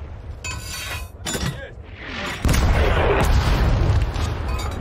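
Artillery shell exploding about two and a half seconds in: a sudden heavy boom with a deep rumble that carries on for over a second. It is preceded by a sharp crack about a second in.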